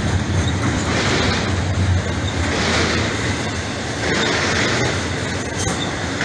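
Doublestack intermodal freight cars rolling past at speed: a steady rumble of steel wheels on rail, with a hissing swell about every one and a half to two seconds as each set of trucks goes by.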